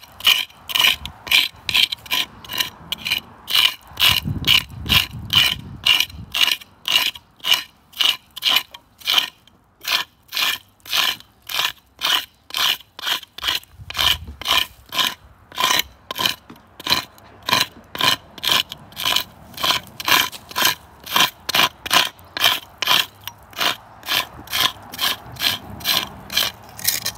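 A flat metal scraper blade is dragged in short repeated strokes over the bark of a lichen-covered tree trunk, scraping the lichen off. It goes at about two to three strokes a second, with brief pauses about ten and thirteen seconds in.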